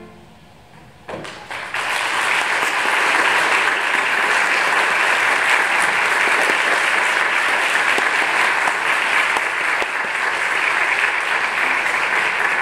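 A string orchestra's final chord has just died away; after about a second of hush, audience applause starts and carries on as steady clapping.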